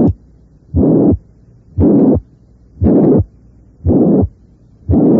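Heartbeat at about one beat a second with a loud, very harsh holosystolic murmur filling the whole gap between the first and second heart sounds. Such a harsh holosystolic murmur loudest at the apex should raise suspicion of mitral regurgitation due to ruptured chordae tendineae.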